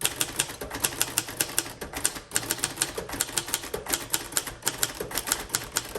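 Typing on a 1953 Royal Quiet Deluxe manual typewriter: a fast, even run of sharp key and typebar strikes, several a second.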